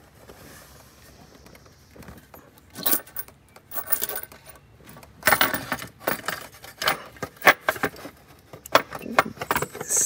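Sharp metal clicks and clinks, a few at first and then coming quickly from about five seconds in, as the unbolted valve cover of a Ford 5.4-litre three-valve V8 is rocked and lifted loose from the cylinder head.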